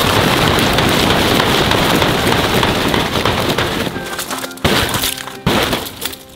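Tent fabric rustling loudly as the tent is taken down, for about four seconds. Then background music takes over, with a couple of knocks.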